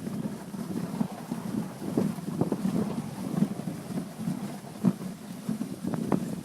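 Wind buffeting the microphone of a camera riding on a moving dog sled, with frequent irregular knocks and rattles as the sled runs over snow.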